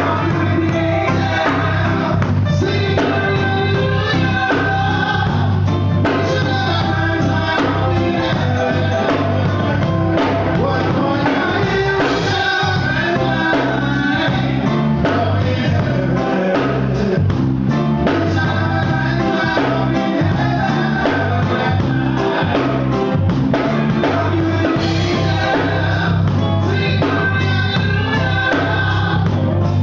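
Live band playing, with a man and a woman singing into microphones over an electronic keyboard and a drum kit; loud and steady throughout.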